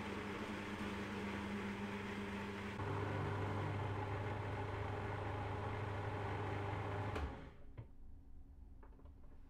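Cuisinart food processor motor running steadily, blending a milky soybean-and-water mix for soy milk. Its hum grows louder and lower-pitched about three seconds in, then cuts off suddenly near the end, followed by a few faint clicks.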